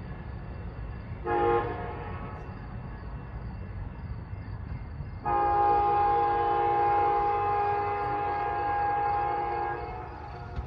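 Amtrak passenger train horn: a short blast about a second in, then a long blast of several notes held for about four and a half seconds from about halfway, over the low rumble of the train.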